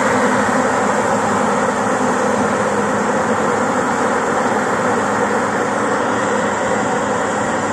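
Steady running noise of heavy farm machinery: a combine harvester at work cutting corn with a tractor running alongside.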